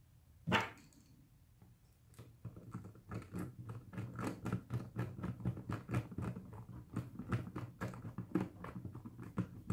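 Hand screwdriver driving a facemask-clip screw into a plastic football helmet shell: a sharp click about half a second in, then a quick, uneven run of small clicks, several a second, as the screw is turned.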